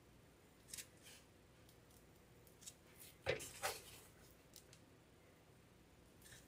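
Mostly near silence, broken by a few faint, brief rustles of a plastic piping bag of spackle being squeezed to pipe a cake border; the clearest comes about three seconds in.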